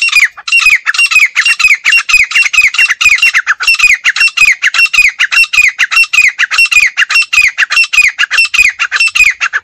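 Female grey francolin (teetar) calling: a loud, fast series of short, sharp notes, about four a second, each dropping in pitch, kept up without a break and stopping near the end.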